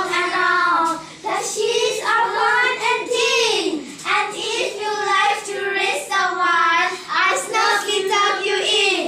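Children's voices reciting a poem in a sing-song chant, with held, melodic notes in phrases about a second long.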